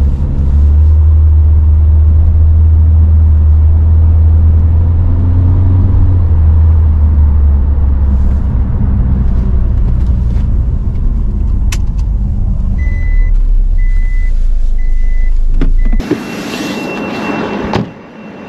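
Steady low road and engine rumble inside a Nissan's cabin while driving. Near the end a warning chime beeps four times, evenly spaced, then the rumble gives way to outdoor hiss.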